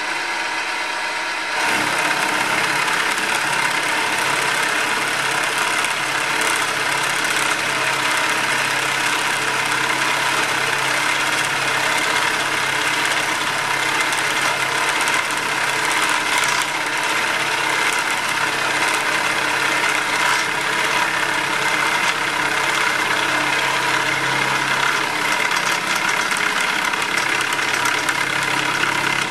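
Milling machine taking a cut across a steel block with a 32 mm carbide-insert face mill: a loud, steady, rough cutting noise over the hum of the running machine, growing louder about a second and a half in. The inserts are struggling with the cut, which the machinist takes for the wrong tool for the job.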